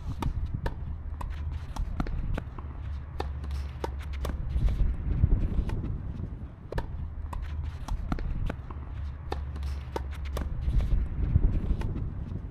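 Tennis players' footsteps and shoe scuffs on an artificial-grass court, a scatter of sharp, irregular taps and clicks, over a steady low rumble that swells twice.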